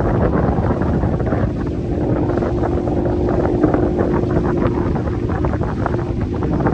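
Boat motor running steadily, with heavy wind buffeting the microphone and a faint steady hum under the rush.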